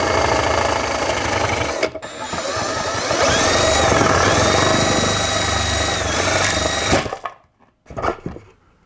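Cordless drill spinning an adjustable hole cutter through a drywall ceiling: motor whine and the blades scraping through sheetrock, easing off briefly about two seconds in, then running again with the pitch rising and settling before stopping abruptly about seven seconds in. A couple of short knocks follow near the end.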